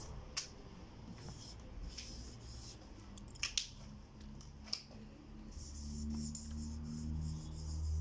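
Marker writing on a whiteboard: a few sharp taps and short scratchy strokes, then steadier scratching from about five and a half seconds in, with a low rumble under it.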